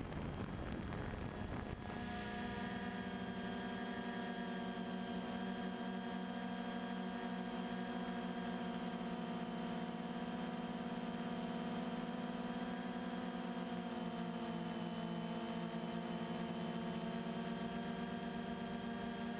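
Multirotor drone's motors and propellers humming steadily, as picked up by the camera on the drone. A rush of noise comes first, and the steady hum settles in about two seconds in. The upper tones shift slightly in pitch near the end.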